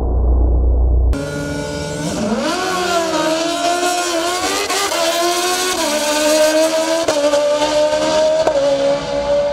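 Two drag-racing sport motorcycles at full throttle, engine pitch climbing and then dropping back at each gear shift, about two, five, seven and eight and a half seconds in. For the first second it is only a dull low rumble before the full engine sound cuts in.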